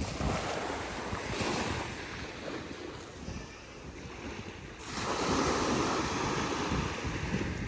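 Small waves breaking and washing up a sandy beach, surging twice: once about a second in and more strongly about five seconds in. Wind buffets the microphone throughout.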